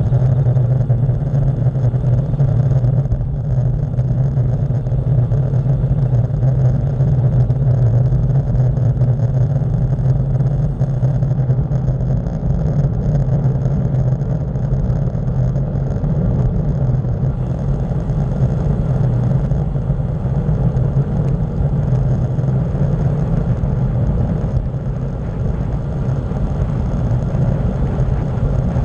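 Steady, loud wind rush over the microphone of a camera on a bicycle coasting fast downhill on asphalt, a low rumbling roar with no breaks.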